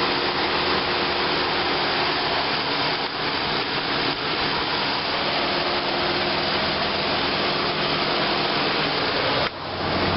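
Electric engine-cooling fan running in high-speed mode: a steady rushing whoosh over the idling 3400 V6. About nine and a half seconds in, the sound dips briefly and a low hum becomes stronger.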